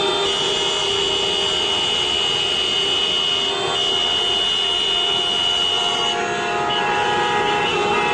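Steady running noise of idling vehicles, with several held steady tones that shift pitch about three and a half and six seconds in.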